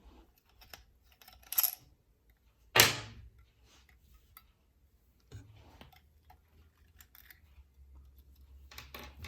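Small metallic clicks and taps of an AR-15 magazine release button and catch being twisted apart by hand, with one louder ringing metal clack about three seconds in.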